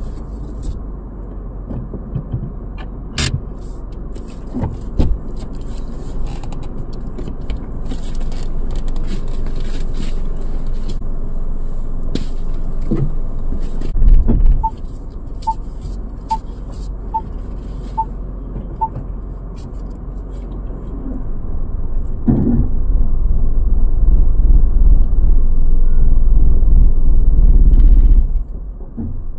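Cabin noise of a Tata Altroz being driven: a steady low engine and road rumble that swells louder and heavier in the last third. Around the middle, six short, evenly spaced beeps sound, and a few clicks and knocks are scattered through.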